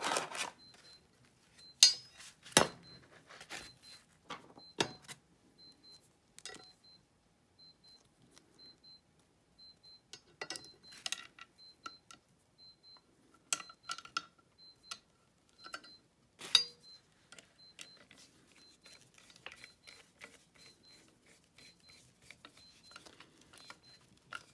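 Small metal screws and hard plastic parts being fitted together and driven with a hand screwdriver: scattered clicks, taps and light scraping, with a few sharper knocks in the first five seconds and one about sixteen seconds in.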